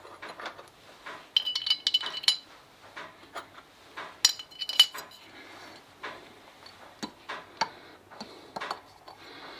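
Small metal washers and spacers clinking against each other and the Solex 2200 moped engine's cylinder head as they are handled and set in place: scattered light metallic clicks, with short ringing clinks about one and a half seconds in and again about four seconds in.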